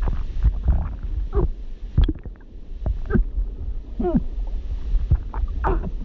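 Voice-acted drowning: a woman's muffled, bubbly glubs and gurgling cries, short strangled vocal sounds that bend in pitch every second or so. Clicks and bubbling sit over a constant low rumble.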